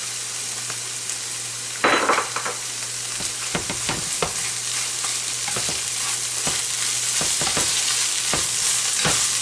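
Flaked canned salmon with onions and garlic sizzling steadily in hot oil as it is stirred, a utensil scraping and tapping against the pan many times. There is a brief louder burst about two seconds in. The mixture is warming through and browning on the bottom.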